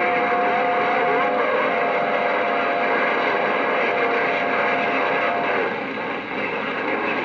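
CB radio receiver putting out a steady rush of band static, "hash and trash", with a steady whistling heterodyne tone that shifts slightly in pitch about a second and a half in and stops about five and a half seconds in.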